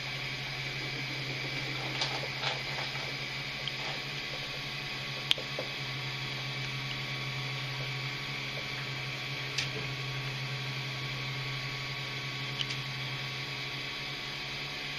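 Steady low hum and hiss, with a few faint ticks as a soldering iron tip works at a diode on a small circuit board to desolder it.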